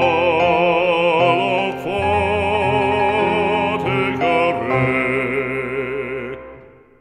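Recorded French sacred song: a singer holding long notes with vibrato over sustained accompaniment, fading out near the end.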